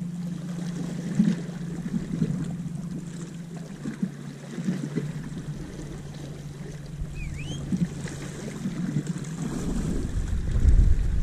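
Small waves washing and lapping against a rocky shoreline, with a low steady hum and a short high chirp about seven seconds in. Near the end wind starts buffeting the microphone.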